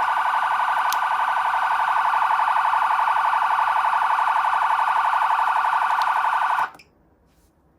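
Whelen CenCom RED electronic siren amplifier sounding a fast-warbling siren tone, which cuts off suddenly near the end.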